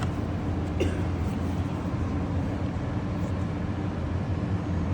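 Steady low background hum with a light click about a second in.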